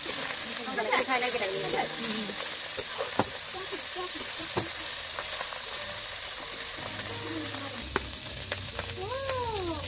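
Small whole fish frying in oil in a black iron kadhai over a wood fire: a steady sizzling hiss, with a few sharp clicks.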